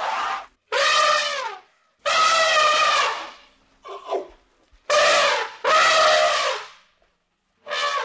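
Elephant calves trumpeting again and again: a series of loud, high, brassy calls, each up to about a second and a half long, some dropping in pitch at the end, with short gaps between them and a couple of brief, quieter calls.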